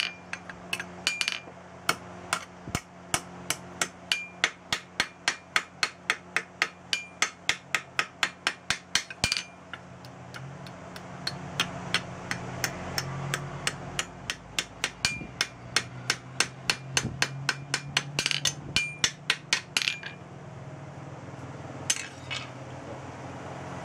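Hand hammer striking a sickle's metal handle collar and the steel anvil beneath it, a fast even run of about three blows a second, some with a clear ringing anvil tone. The blows soften and thin out for a few seconds in the middle, then pick up again and become sparse near the end.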